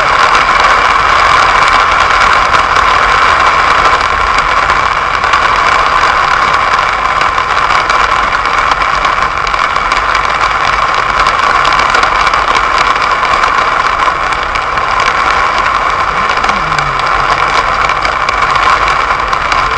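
Heavy rain beating on a car's roof and windshield, heard from inside the car, as a loud, steady hiss with dense fine ticks of drops and the car's engine running underneath.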